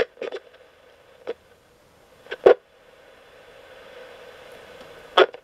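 Coopbox 26 ghost box radio sweeping the FM band in squelch mode: mostly hushed with faint hiss, broken by short snatches of station sound as the sweep passes them, the loudest about two and a half seconds in and another near the end.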